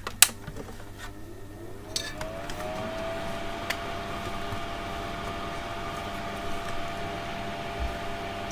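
Switch click, then a small fume-extractor fan motor spins up, its whine rising in pitch for about a second before settling into a steady running hum with airflow noise.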